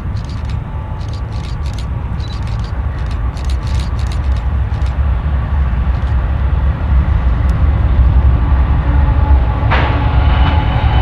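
A pair of GE diesel locomotives hauling an intermodal freight train: a low engine rumble that grows louder as the train comes closer. A higher steady tone joins in near the end.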